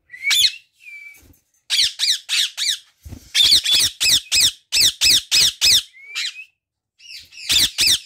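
Indian ringneck parrots squawking: runs of short, harsh, high-pitched calls, about three or four a second, in bursts with brief pauses.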